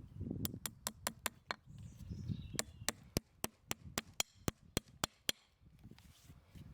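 Farrier's hammer tapping in quick, even, sharp strikes, about four a second, in two runs with a short pause between them.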